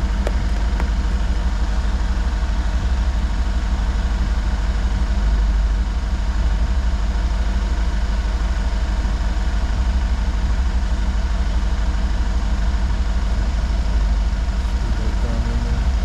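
An engine idling steadily with a constant low hum.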